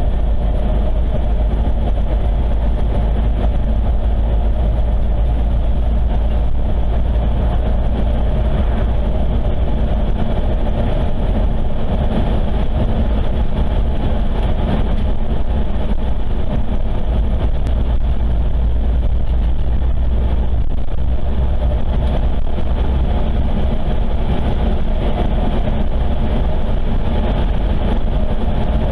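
Car driving along a paved road, with steady engine and tyre road noise and a deep rumble that holds level throughout.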